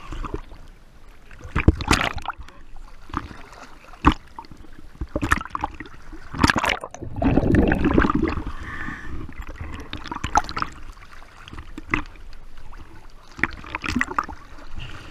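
Seawater splashing and sloshing around a camera held at the waterline, with waves slapping it in irregular splashes. About seven to eight seconds in there is a longer gurgling wash as it dips under.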